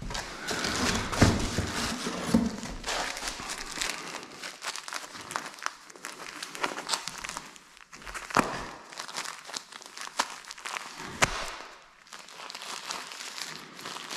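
Continuous crinkling, crackling rustle with many sharp clicks and short scrapes: handling noise from plastic or paper material during drywall taping and skim-coating work.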